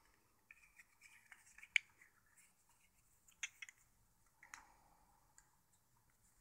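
Faint, scattered clicks and light rustling from a handmade butterfly knife (balisong) being handled. A sharper click comes a little under two seconds in.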